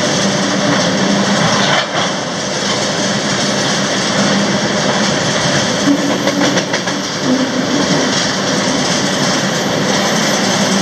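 Freight train rolling along the track: a loud, steady rumble and rattle of wheels on rails, with a run of clicks about six to seven seconds in.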